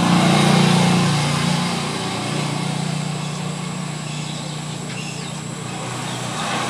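A vehicle engine running nearby over a steady low hum, swelling about half a second in and then slowly easing off.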